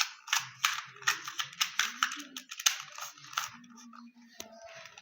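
A plastic 2x2 Rubik's cube being turned quickly, its layers making a rapid run of clicks and clacks that dies down after about three and a half seconds.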